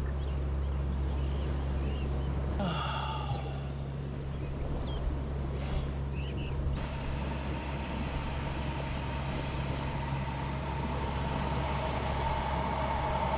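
Portable gas canister stove burning steadily under a pot of water, with a tone that grows stronger over the second half as the water heats to steaming.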